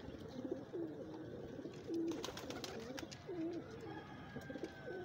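Several domestic pigeons cooing, their low wavering coos overlapping and repeating, with a few sharp clicks among them.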